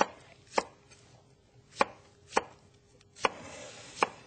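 Kitchen knife slicing a green onion on a cutting board, the blade knocking on the board about six times at an unhurried, uneven pace.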